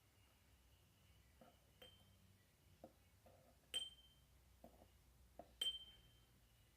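Hand bell rung twice, about two seconds apart: each stroke is a sharp, clear, high ding that rings briefly and fades. Faint knocks from the bell being handled come before and between the rings.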